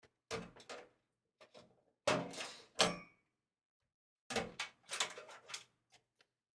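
Knocks, scrapes and rattles of computer case hardware being worked on by hand, in four short clusters.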